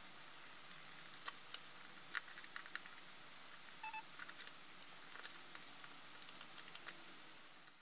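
Faint clicks and taps of a metal CPU delid tool being handled and unscrewed by hand, over a steady hiss, with a short squeak about four seconds in.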